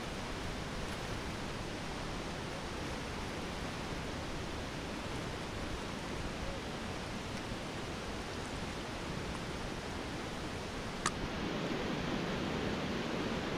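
Steady rush of whitewater rapids. A single sharp click sounds about eleven seconds in, and the water noise grows louder and deeper after it.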